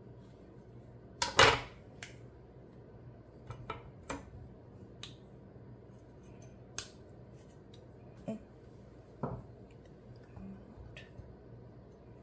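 A chef's knife working through an avocado and striking its pit: scattered light clicks and taps, with one sharper knock about a second and a half in.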